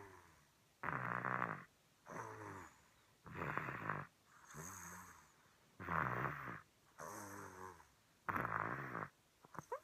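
A young child snoring in his sleep. Each breath gives a louder snore and then a softer one, about every two and a half seconds, four times over.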